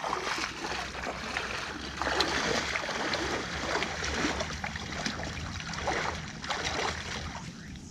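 Lake water sloshing and splashing against shoreline rocks in irregular surges, over a low steady rumble.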